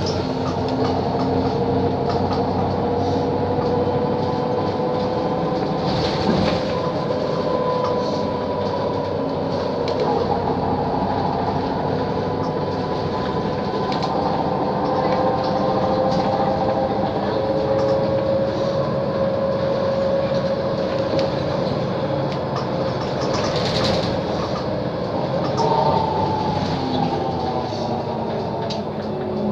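Cabin sound of a Mercedes-Benz O 530 Citaro city bus driving: engine and drivetrain running with a steady whine that drifts slowly up and down in pitch with road speed, falling away about twenty-six seconds in. Two short knocks or rattles are heard, about six seconds in and again around twenty-four seconds.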